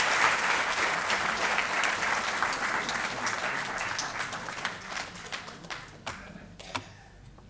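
Audience applauding, the clapping thinning out over the last two seconds into a few scattered claps before dying away.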